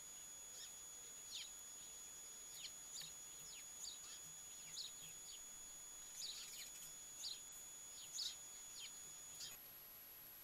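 Faint birds chirping outdoors: a dozen or so short, quick falling chirps, scattered irregularly, over a steady high thin whine. Near the end the chirps stop and the whine changes to a single higher tone.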